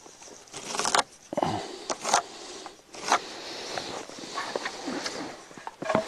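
A few short, scratchy strokes as a pencil marks an angled cut line across a weathered 2x6 board, mixed with the crunch and rustle of hands and knees shifting in snow.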